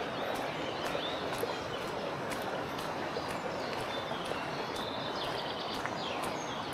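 Footsteps on a gravel path at a walking pace, roughly two steps a second, over the steady noise of a fast-flowing river in flood, with birds chirping.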